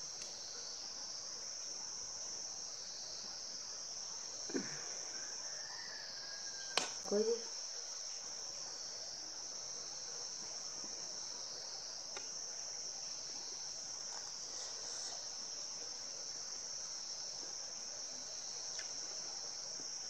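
Steady high-pitched insect chorus, with a few light clinks of a steel spoon and fork against a plate.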